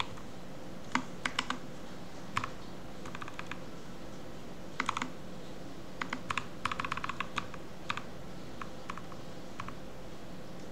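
Keys on a mechanical computer keyboard being pressed in short, irregular bursts of a few clicks at a time, with pauses between them, as single-letter browser shortcut commands are typed.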